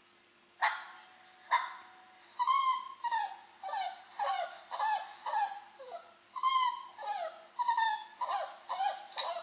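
A dog whimpering and yipping in a quick series of short, high, falling whines, about two a second, after two sharp clicks.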